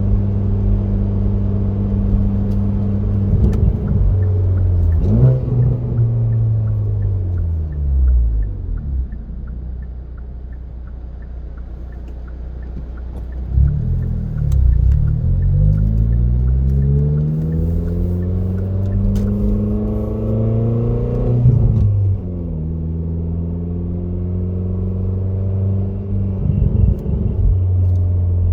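Car engine running at a steady hum, its pitch sinking slowly a few seconds in, then climbing steadily and dropping back to a steady hum, with a faint regular ticking above it: the strange noise the owner has not been able to identify.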